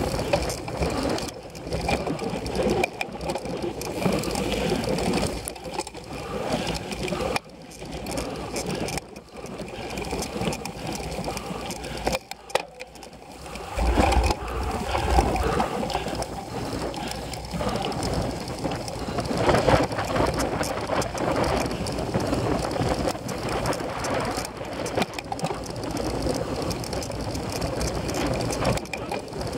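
Cyclocross bike being ridden over rough dirt and grass: continuous tyre and rattle noise from the bike jolting over bumps, with irregular low thumps from wind and knocks on the on-board microphone.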